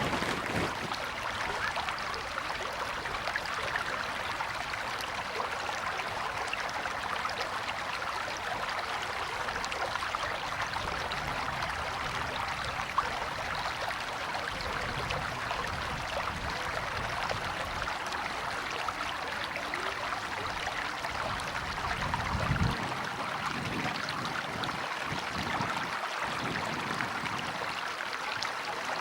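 River water flowing in a steady, even rush, with a brief low rumble about three quarters of the way through.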